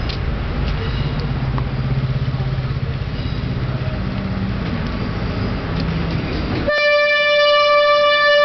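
SS8 electric locomotive hauling passenger coaches past at close range with a steady low rumble and hum, then about two-thirds through it sounds its horn: one long, steady, loud note that lasts to the end.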